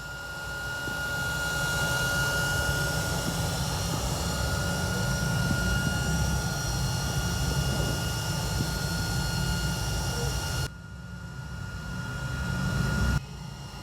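A motor-driven tool running steadily with a thin steady whine over a dense noise. It cuts off sharply about eleven seconds in, then runs again, building up for about a second before stopping abruptly near the end.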